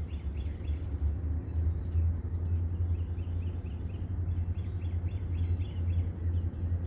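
Birds chirping in quick, repeated short notes over a steady low rumble.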